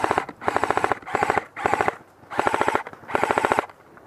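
Airsoft guns firing on full auto in about six short, rapid bursts of clicking shots, each lasting under half a second, with brief pauses between them.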